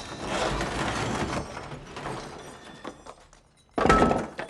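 Movie sound effects: a loud rushing hiss of gas from an oxygen supply just turned on, fading over about two seconds, then a sudden loud bang or crash near the end.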